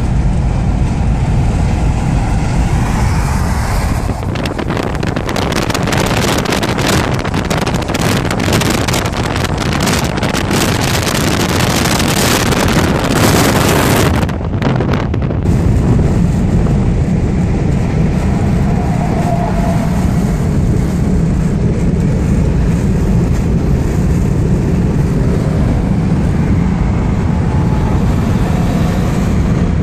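Steady road and engine noise of a car driving at motorway speed, heard from inside. From about four seconds in until about halfway, a louder gusting rush of wind on the microphone lies over it and stops abruptly; after that a deep steady rumble dominates while driving close alongside a large truck.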